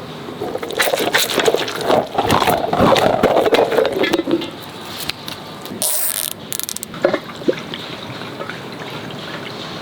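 Water gushing and sloshing as it fills a stretchy giant worm toy, with a short sharp hiss about six seconds in.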